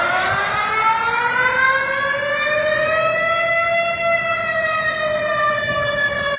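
Malaysian public warning siren sounding one long wail. Its pitch rises slowly for about four seconds, starts to fall, and then cuts off suddenly.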